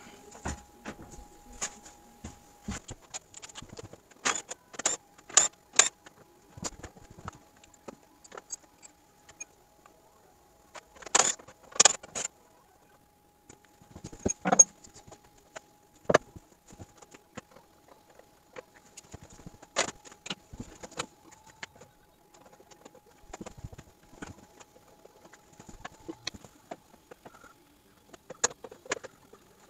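Scattered sharp clicks, knocks and light metallic clatter of hand tools on bolts and plastic trim at a pickup's front end as the grille shutter assembly is unbolted. A quick run of about five clicks comes a few seconds in, and another cluster comes a few seconds later.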